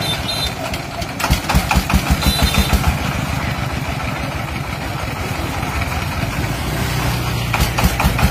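Single-cylinder 'dompeng' (Dongfeng-type) diesel engine running with an even, rapid chugging. The chugging is louder and punchier between about one and three seconds in.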